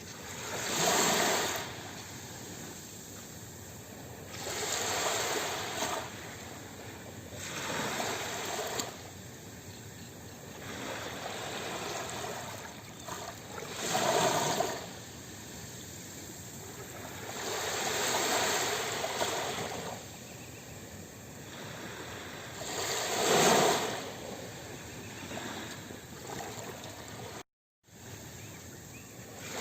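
Sea waves breaking and washing on the shore: a rushing hiss that swells and falls back about six times, every few seconds. Near the end the sound cuts out completely for a split second.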